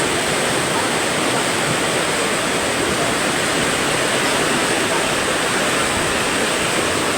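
Steady, unbroken rush of water, a dense even hiss.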